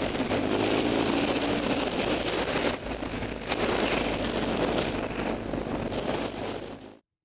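Wind buffeting the microphone over a BMW R1100GS boxer-twin engine running as the motorcycle rides along a dirt track; the wind noise is the louder part. The sound cuts off suddenly near the end.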